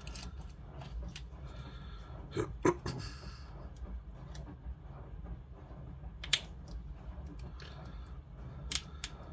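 A few sharp snips and clicks of scissors trimming adhesive strips, over a steady low hum.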